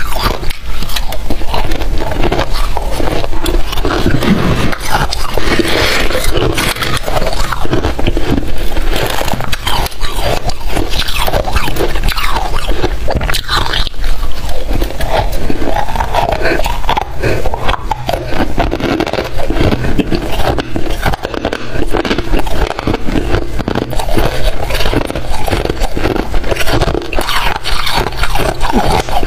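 Freezer frost being bitten and chewed close to the microphone: continuous loud crunching and crackling, full of small snaps.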